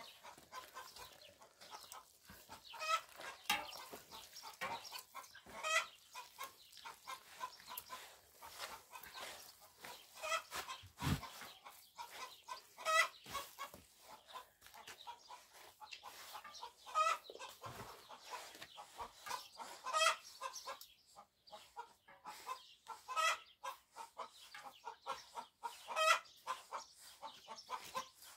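Chickens clucking in short calls every few seconds, over the soft scrape and pat of hands working flour into dough in a metal basin. A dull thump about eleven seconds in.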